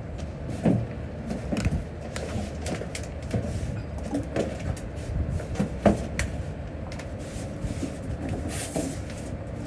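Irregular knocks and clanks of repair work over a steady low rumble.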